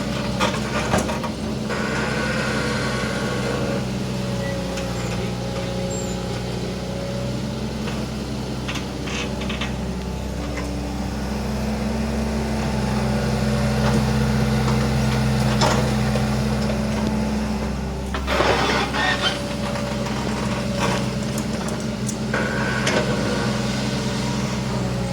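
Hitachi Zaxis 120 excavator's diesel engine running steadily under hydraulic work, its level rising midway as it takes load. There are several short clatters, near the start and again in the second half.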